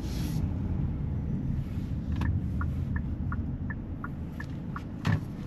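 Steady low rumble of a car's road and engine noise inside the cabin. About two seconds in, a turn signal starts ticking, about three clicks a second alternating between two pitches, and a single knock sounds near the end.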